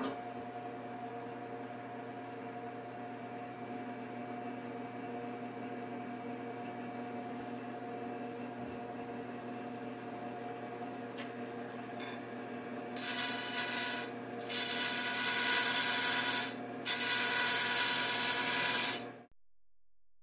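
Wood lathe running with a steady motor hum, spinning a segmented wood blank. From about two-thirds of the way in, a turning tool cuts into the spinning blank in three loud hissing passes; the sound then cuts off abruptly.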